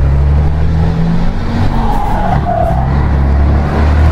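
Scania 113's turbocharged 11-litre straight-six diesel pulling under way, heard from the cab, with a whistle from the turbocharger, which has a comb fitted in its intake to make it 'sing'. The whistle rises about halfway through, wavers, then fades.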